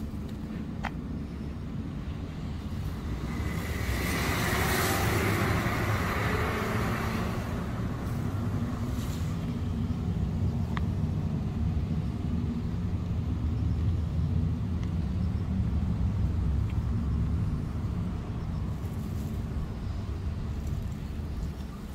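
Steady low rumble of road traffic, with a vehicle passing that swells and fades about four to seven seconds in.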